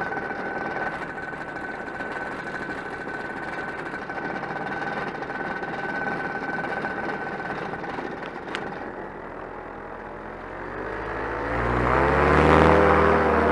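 Solo 210 single-cylinder two-stroke paramotor engine idling steadily with an even whine. It stops after a sharp click about eight seconds in, and background music fades in near the end.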